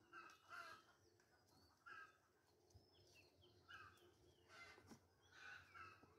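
Near silence with faint, scattered bird calls: short chirps with quick pitch glides every second or so.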